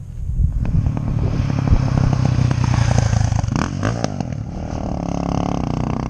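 KTM LC4 640 Duke II single-cylinder four-stroke engine through an Akrapovic exhaust, picking up from idle about half a second in and running loud with rapid firing pulses, then settling to a steadier note in the last second or so.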